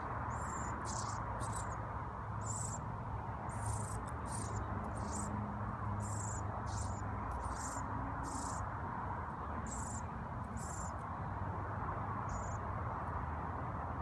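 Fledgling songbird begging with short, high-pitched chirps, about a dozen in quick irregular succession that stop about eleven seconds in, with one more near the end, while its parent feeds it. A steady background hum runs underneath.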